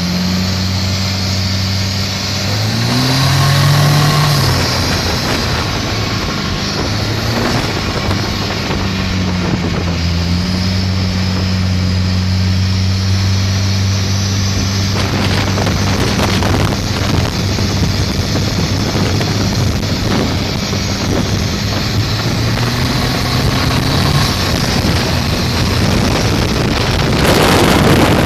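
Turbocharged Volvo B21ET four-cylinder engine driving a planing motorboat, running steadily at speed with a rise in engine pitch about three seconds in, over rushing wind and water noise.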